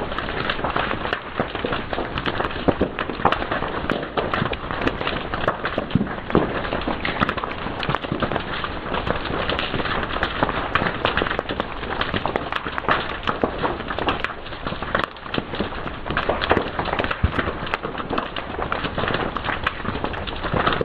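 Fire crackling and popping steadily, with many quick sharp snaps over a continuous hiss.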